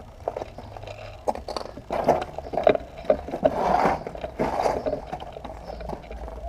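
Irregular scraping, rustling and sharp knocks close to the microphone, busiest in the middle, with a longer rustle about four seconds in.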